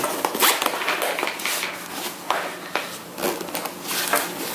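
Canvas bag fabric rustling and a metal zipper being tugged back and forth, with a few sharp clicks, as fabric snagged in the zipper teeth is worked free.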